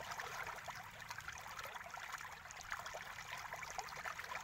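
Faint, steady background noise like trickling water, a hiss with many small irregular crackles and no speech.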